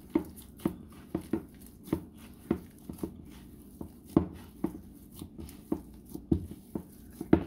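Hands kneading soft, wet corn-flour masa dough in a bowl: repeated dull squishing presses and thumps, about two a second, the loudest one near the end.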